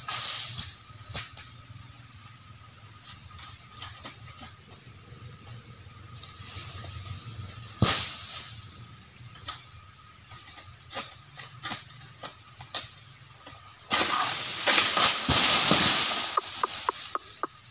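Cutting a frond with an egrek, the long-poled oil palm harvesting sickle: scattered sharp clicks and creaks from the pole and its new clamp as the blade is pulled, then a cut oil palm frond crashing down through the foliage for about two seconds near the end. A steady high insect drone runs behind.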